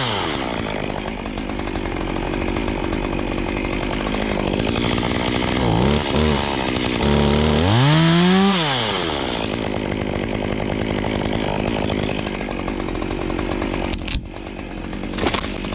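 Chainsaw running at full throttle bucking logs, the engine revving up and dropping back to idle between cuts, with one clear rise and fall about halfway through.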